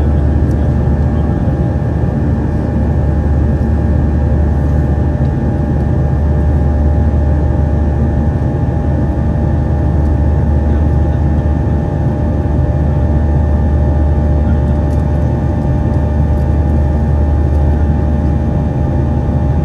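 Steady cabin drone of a Boeing 737-800 with its CFM56 jet engines running: a loud, even low rumble with a few steady engine tones and airflow hiss.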